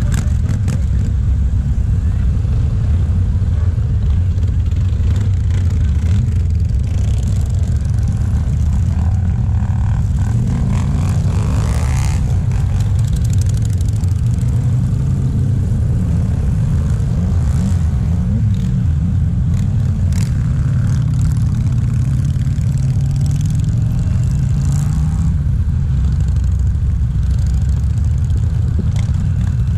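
A long column of motorcycles, many of them cruisers, riding past at low speed: a steady, dense low engine drone, with individual bikes revving up and down as they pass.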